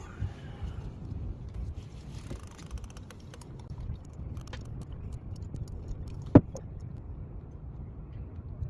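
Small clicks and taps of epoxy being dispensed and mixed by hand, with one sharp click about six seconds in, over a low steady rumble.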